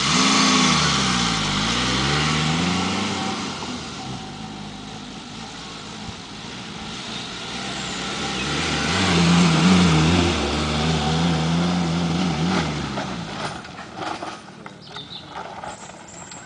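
Suzuki SJ off-roader's engine revving hard as it pulls away, its note dropping and climbing again twice in the first few seconds as it shifts up, then easing. It comes back loud at high revs for several seconds and fades near the end as the vehicle drives off up the hill.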